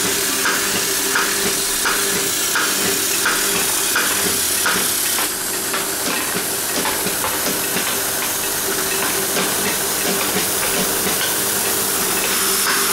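Radial-lead component cutting machine running: a steady mechanical hiss and hum with a regular stroke about every two-thirds of a second. The strokes stop about five seconds in and start again near the end.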